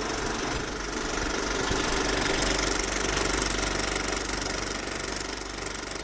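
Viper 3D printer's stepper motors running in a steady, fast-fluttering buzz.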